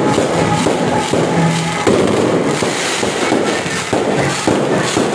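Aerial fireworks going off overhead in a dense, continuous crackle of many small pops and bursts.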